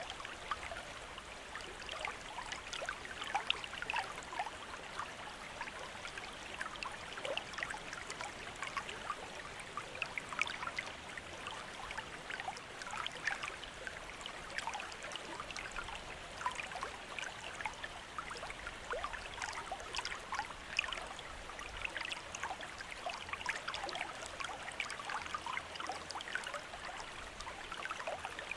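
Water running from a bamboo fountain, trickling and splashing steadily, with many small drip and splash sounds.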